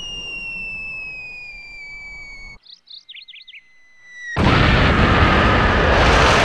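A long whistle falling slowly in pitch, like a bomb dropping, for about two and a half seconds; it thins out under a few short bird chirps. About four seconds in, a loud explosion hits and its blast rumbles on.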